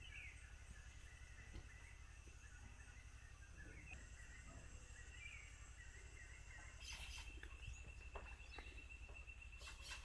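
Faint rainforest morning ambience: scattered bird chirps and calls over steady high insect drones, with a louder insect buzz coming in about seven seconds in.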